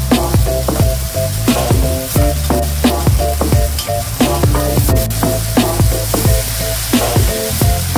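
Sliced onion and green onion sizzling in hot oil in a nonstick wok while a metal spoon stirs them, with frequent short scrapes and taps of the spoon on the pan. Near the end, cut sausages are tipped in from a plastic bag.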